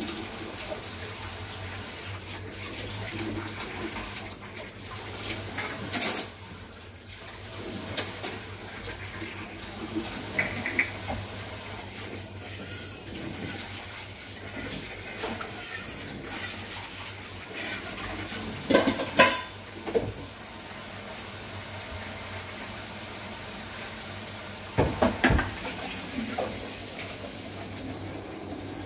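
Kitchen tap water running into the sink during dishwashing, with dishes and cutlery clinking and clattering several times.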